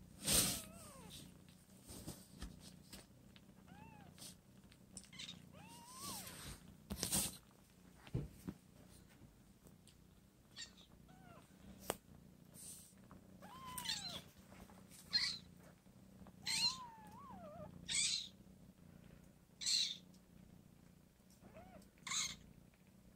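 Two-week-old kitten mewing in short, high-pitched cries that rise and fall, one every second or two, over a faint steady purr from the nursing mother cat.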